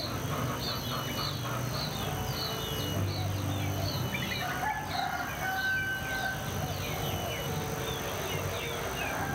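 Outdoor morning soundscape: a songbird repeats a short chirp over and over, and a rooster crows about halfway through.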